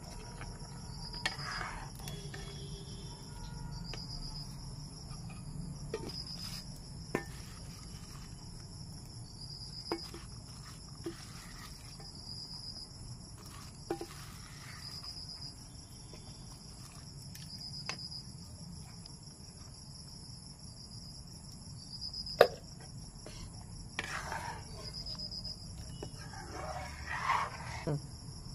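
Night insects trilling steadily at a high pitch, with a short chirp repeating about every two seconds. A metal ladle clinks and scrapes against the metal kadai now and then, the sharpest clank about three quarters of the way through.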